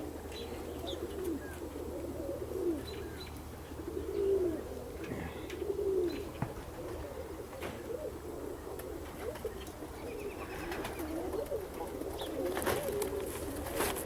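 Domestic pigeons cooing, several calls overlapping and repeating, with a few higher chirps and some sharp clicks near the end.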